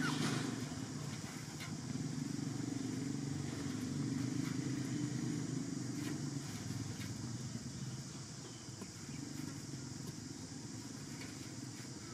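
A steady low engine rumble, as of a motor vehicle running nearby, easing off slightly over the last few seconds, with a few faint clicks.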